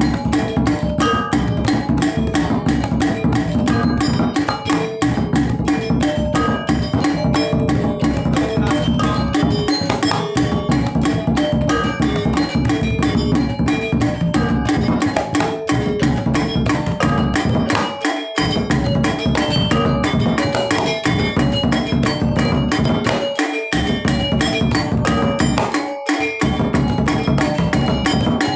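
Balinese gamelan music for topeng dance: a percussion ensemble with tuned metal keys and drums playing fast, densely struck notes.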